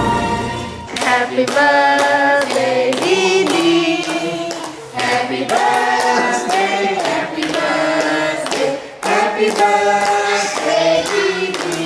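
A few voices singing a birthday song together, with hands clapping along in time.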